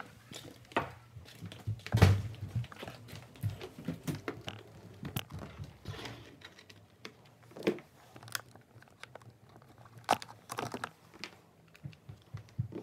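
Camera being handled and set down on a hardwood floor, with a knock about two seconds in, followed by scattered light clicks and taps.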